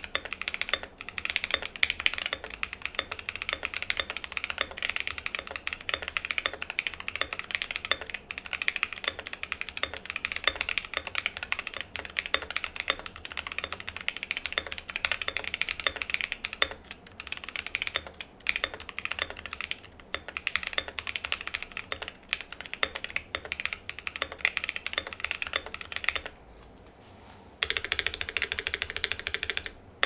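Mechanical keyboard typing: a Cyberboard R3 with lubed Boba U4T tactile switches, an aluminium plate, full foam and POM jelly keycaps, fast continuous keystrokes. The typing stops for a little over a second near the end, then picks up again.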